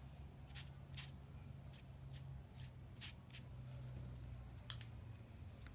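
Faint taps and clicks of painting supplies being handled on a tabletop, the loudest a sharp click near the end, over a low steady hum.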